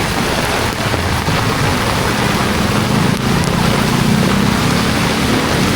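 Heavy rain pouring steadily on a city street, with the low hum of a passing motor vehicle's engine underneath, strongest in the middle of the stretch.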